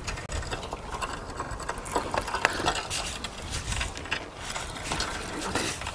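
Fishing reel being cranked to bring in a hooked fish, its gears whirring with small irregular clicks.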